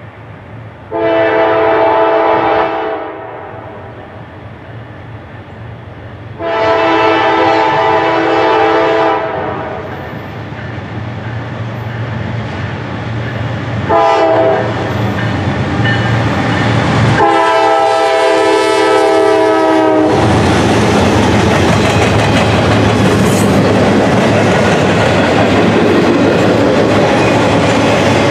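Multi-chime air horn of a Norfolk Southern GE D9-40CW diesel locomotive sounding long, long, short, long, the standard grade-crossing signal, as the train approaches. Then the locomotive and its intermodal well cars roll past with a steady, loud rumble and clatter of wheels on the rails.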